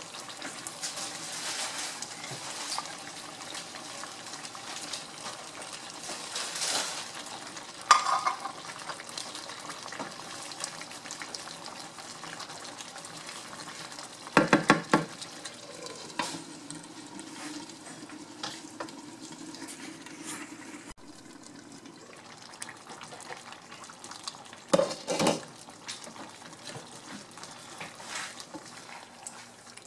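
A thick tomato-based chicken stew sizzling and simmering in a nonstick skillet. A wooden spatula stirs through it, knocking and scraping against the pan a few times.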